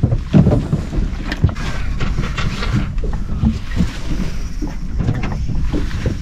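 Wind buffeting the microphone as a steady low rumble, with scattered knocks and handling bumps on a small aluminium fishing boat.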